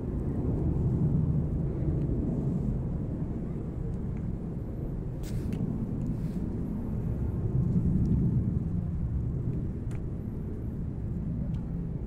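Low outdoor rumble that swells and fades every few seconds, with a few faint clicks.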